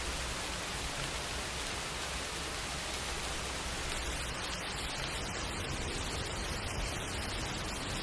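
Steady rain, an even hiss with no music over it; about four seconds in the high end of the hiss turns uneven and patchy.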